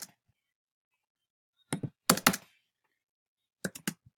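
Computer keyboard keys tapped in small quick groups: a tap at the start, a cluster of about five around two seconds in, and three more near the end.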